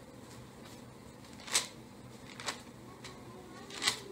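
Three brief, faint rustles in a quiet room: Bible pages being leafed through to look up a verse.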